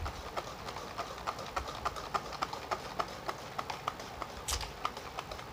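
Egg, powdered sugar and oil being beaten by hand in a bowl: the utensil knocks against the bowl in a steady rhythm of about three strokes a second.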